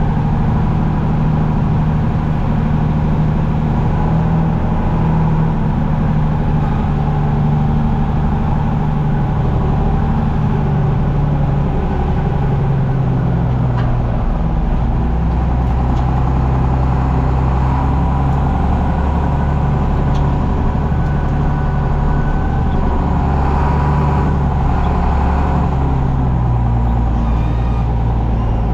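John Deere 7520 four-wheel-drive tractor's diesel engine running steadily under load while pushing dirt with a front dozer blade. Its pitch shifts a little from time to time as the load changes.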